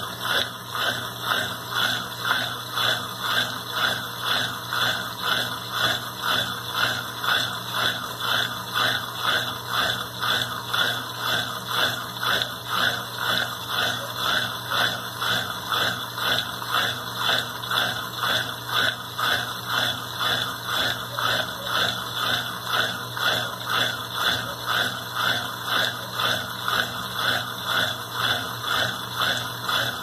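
Consul Maré Super 10 kg top-loading washing machine agitating its load: water and clothes swishing back and forth in an even rhythm, about one and a half strokes a second.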